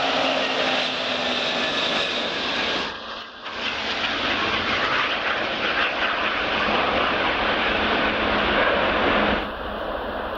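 Antonov An-225 Mriya's six turbofan engines running at take-off power as the aircraft lifts off and climbs away: a loud, steady jet noise. A whine falls in pitch over the first two seconds, and the sound drops out briefly about three seconds in and again near the end.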